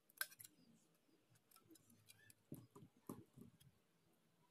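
Faint clicks and crinkles of a thin aluminium drink can being handled as its cut edge is folded over by hand, with a few soft knocks about two and a half to three and a half seconds in.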